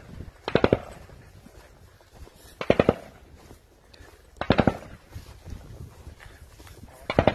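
Short bursts of automatic gunfire, four bursts of a few rapid shots each, spaced about two seconds apart.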